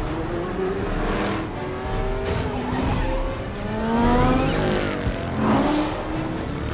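Several racing car engines revving and passing by as film sound effects, their pitch sliding up and down, loudest about four seconds in and again about five and a half seconds in.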